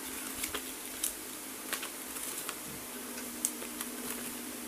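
Paper user manual rustling and crackling as it is handled, with a few sharp crackles, over a steady low hum.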